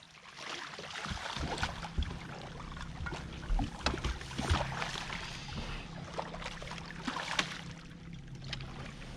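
Water noise around a small fishing boat on a fast river, with scattered knocks and clicks from handling in the boat over a low steady hum.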